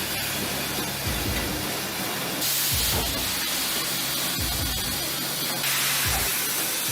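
Sawmill machinery running with a steady hissing noise that shifts abruptly in level about two and a half and five and a half seconds in. Under it, a low thud repeats about every second and a half.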